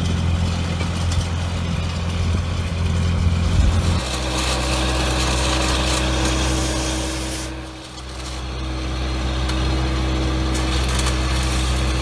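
A small engine running steadily. Its low hum is heavier for the first four seconds, then lighter, and dips briefly near eight seconds.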